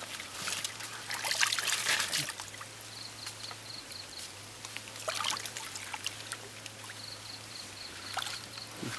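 Hands sloshing and splashing through a shallow muddy puddle while groping for catfish, in bursts about a second in and again around five seconds in. A faint, rapid high-pitched pulsing sounds twice in the background.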